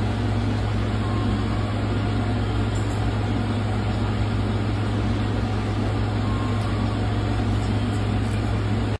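A steady low hum, like machinery running, holding level throughout with no clear events standing out.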